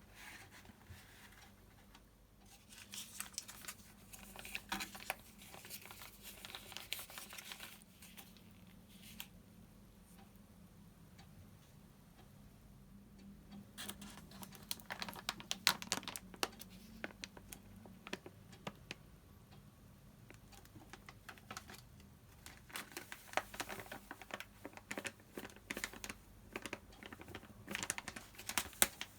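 Rapid, irregular clicking and scraping of a utensil working in a bowl, as in mixing dough, in three bursts with short pauses between.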